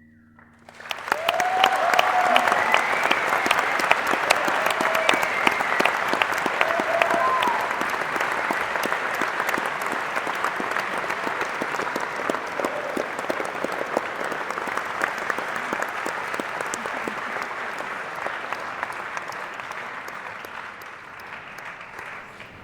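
Concert audience applauding at the end of a song, with a few cheers. It starts about a second in, is loudest over the first several seconds and slowly dies away.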